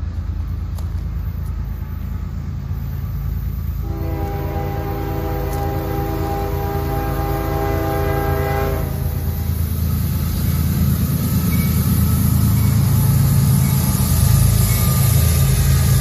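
Diesel locomotive approaching, its engine rumble growing steadily louder as it draws close, with one long horn blast about four seconds in that holds for about five seconds.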